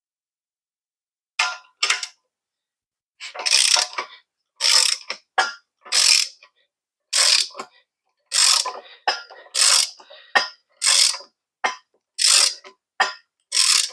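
Hand ratchet wrench cranking down a nut on the van's suspension spring hardware: a run of short ratcheting rasps, about one to two strokes a second, starting about a second and a half in.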